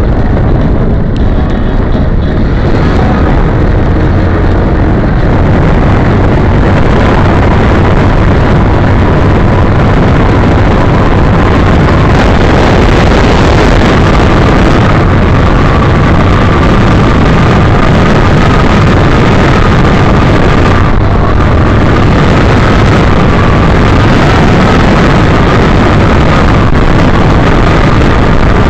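Loud, steady rush of wind on the microphone with road noise while riding a bike at speed, and a faint steady whine underneath.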